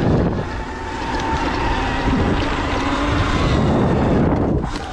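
Electric dirt bike riding over a muddy, rutted motocross track: wind rushing over the camera microphone, with a faint steady whine from the motor and rumble from the tyres and suspension.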